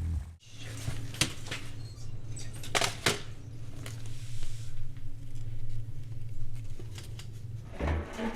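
Low steady hum with sparse small clicks, taps and rustles scattered over it, as in a quiet interior ambience with light movement.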